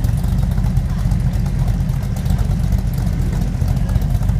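A car engine running steadily at idle with a deep, low rumble.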